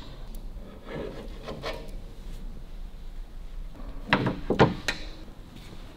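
Hands handling parts and tools: quiet rubbing and scraping, with a few sharp knocks bunched together about four seconds in.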